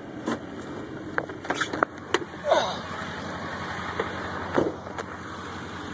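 Someone climbing out of a pickup truck's cab: a run of sharp clicks and knocks from the door and its handle, a short falling squeal about two and a half seconds in, then a few more knocks, over the steady low rumble of the idling engine.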